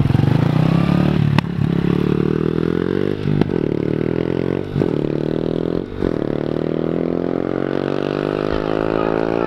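A 110cc mini dirt bike's engine pulls away from a standstill in first gear and accelerates, its pitch climbing. The note drops briefly four times and then climbs again from lower, as the bike shifts up through the gears.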